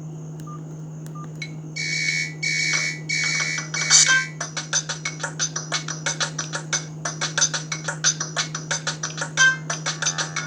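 Sony Ericsson ringtone playing through a Verykool S135 phone's loudspeaker. After a short gap, four electronic chords sound about half a second apart, then a quick regular run of short synthesized notes follows at about four a second, over a steady low hum.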